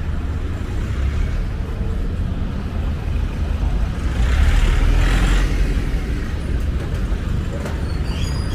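Road traffic: a steady rumble of cars and motorbikes moving along the street, swelling as a vehicle passes close by about four to five seconds in.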